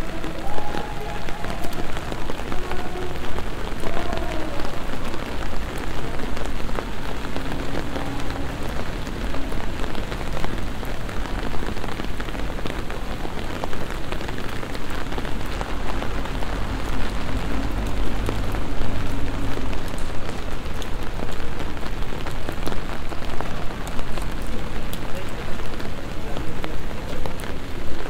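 Steady rain falling on stone paving of a city street.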